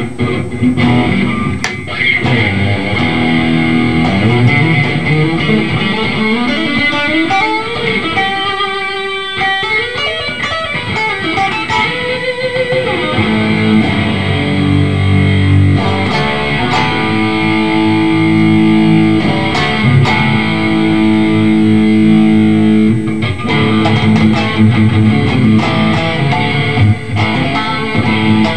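G&L ASAT Classic electric guitar played through a Fender Cybertwin SE amplifier on its '65 Twin Reverb model. Picked single notes with bends and slides for the first twelve seconds or so, then ringing, held chords.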